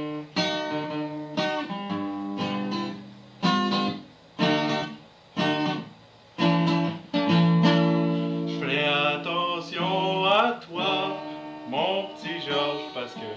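Music: an acoustic guitar strumming chords in short, choppy strokes, with a few brief gaps, during an instrumental break of a folk-country song.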